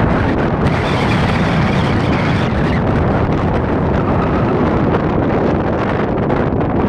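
Wind blowing hard across a phone microphone: a loud, steady rush of noise that flutters and buffets throughout.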